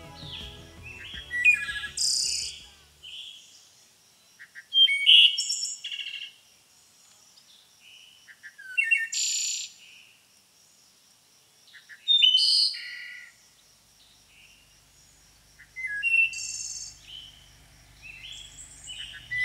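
A songbird singing short, varied phrases of whistled and twittering notes, one about every three to four seconds with pauses between. Background music fades out in the first few seconds, and a faint low hum comes in near the end.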